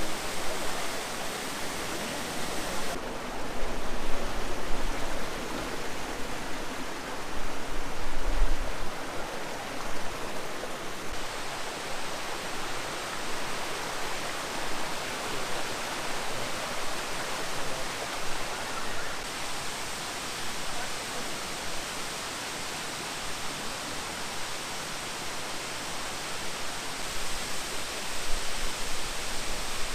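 Waterfalls and cascades rushing in a steady, even wash of water noise that changes abruptly in tone about every eight seconds. Two brief low rumbles rise out of it about four and eight seconds in.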